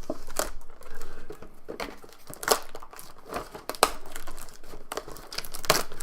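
Hockey card pack wrapper crinkling and tearing as it is opened by hand: an irregular run of crackles, with a few sharper snaps.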